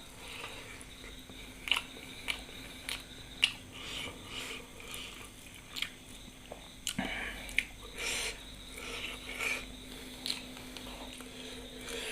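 A person chewing a mouthful of food close to the microphone, with frequent small wet mouth clicks and smacks at irregular intervals.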